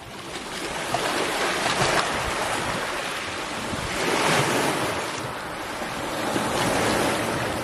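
Sea waves washing against rocks, a steady rushing that fades in over the first second and swells and eases every two to three seconds.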